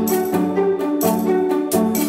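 Instrumental background music with pitched notes over a steady beat.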